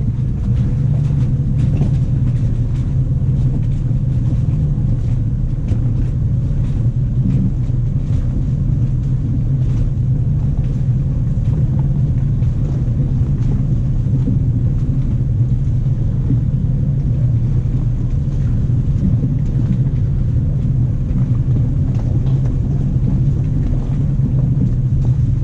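Jeep Grand Cherokee WJ driving slowly off-road: a steady low engine and drivetrain rumble with faint scattered knocks.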